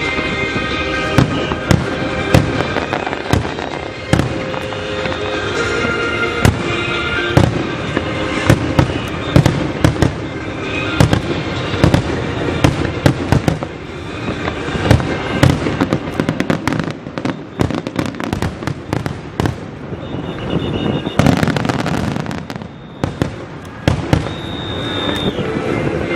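Aerial fireworks display: a dense, irregular run of shell bursts and crackling bangs, with a loud hissing crackle about 21 seconds in.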